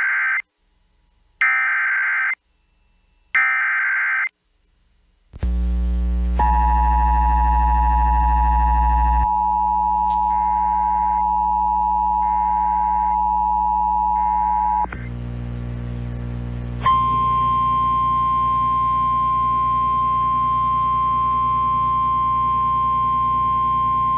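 Emergency Alert System tones: three short buzzy bursts of SAME data header about two seconds apart, then the steady two-tone EAS attention signal for about eight seconds. About two-thirds of the way through it gives way to the single-tone NOAA Weather Radio warning alarm, which holds steady over a low hum.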